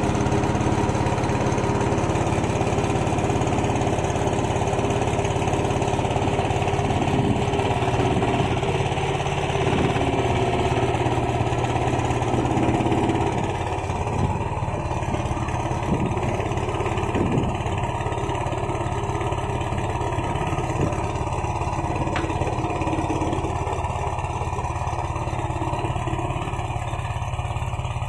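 Small motor engine running steadily, most likely a boat's engine, easing off slightly about halfway through.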